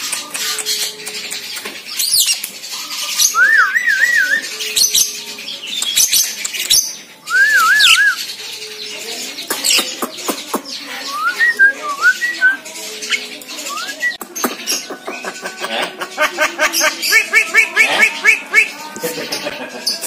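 Javan myna whistling and chirping: two wavy whistled phrases in the first half, scattered short chirps and sharp clicks, then a quick run of repeated notes near the end.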